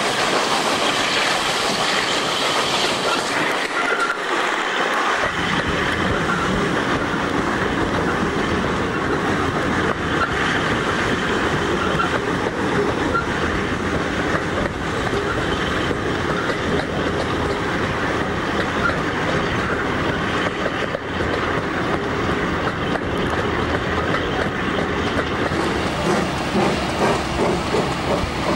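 Passenger train running, heard from an open carriage window: a steady rumble of wheels on the rails, which grows fuller and deeper about five seconds in.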